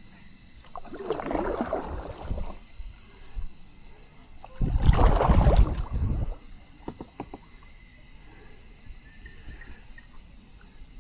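Kayak paddle dipping and splashing in the river, two strokes of water noise, the second louder, followed by a few small knocks, over a steady high buzz of insects.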